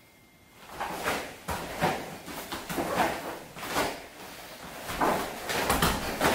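Taekwondo uniform (dobok) snapping and rustling, with bare feet on the mat, as a poomsae is performed: a string of sharp sounds starting about a second in, roughly one or two a second.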